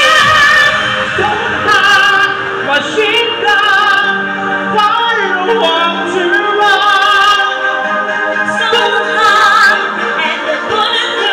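A woman's singing voice with backing music, long held notes with vibrato, played loud over a bar's sound system.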